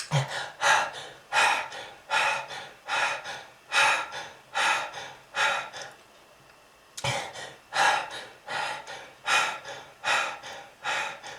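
A person's harsh, hacking cough fit with gasping breaths, a smoker's cough. About eight rough bursts in a row, a short pause a little past halfway, then another run of bursts.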